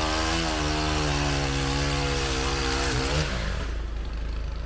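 Chainsaw engine running under throttle, then dropping away about three seconds in, leaving a low engine hum.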